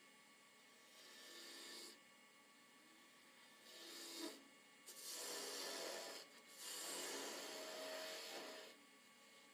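A turning tool cuts into a spinning wooden blank on a wood lathe, making a rasping, shaving sound. It comes in several passes with pauses between them, and the longest, loudest cuts fall in the second half.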